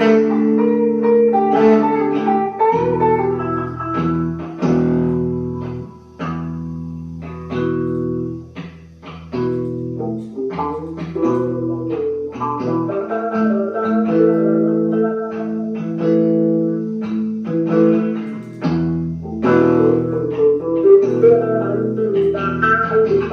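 Guitar music: a run of plucked notes over held low bass notes.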